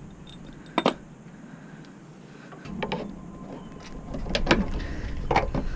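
Metal parts knocking and scraping as an engine-bay mount is worked loose by hand. There is a sharp click about a second in, then a rumbling scrape with several knocks from about four seconds on.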